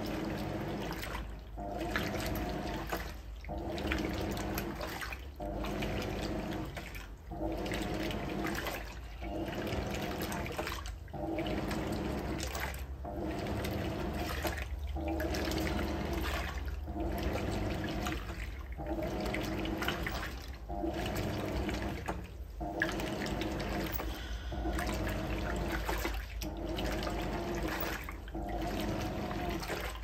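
Hoover Electronic 220m top-loader agitating its load in the draining wash water: a motor hum and water swishing, with a short break about every two seconds as the agitator reverses, over a steady low rumble from the drain pump.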